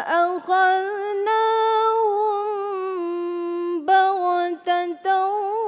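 A young woman's solo Quranic recitation in the melodic competition style (tilawah), holding long, ornamented notes that waver and turn in pitch, with a few brief breaks between phrases.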